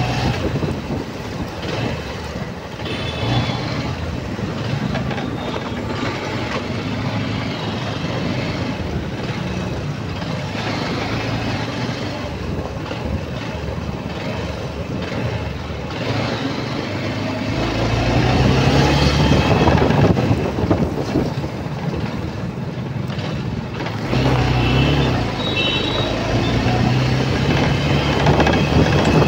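Dense road traffic heard from a moving motorbike: truck, car and motorbike engines running close by, over steady road and wind noise. It swells louder about two-thirds of the way through and again near the end, as heavier engine sound draws close.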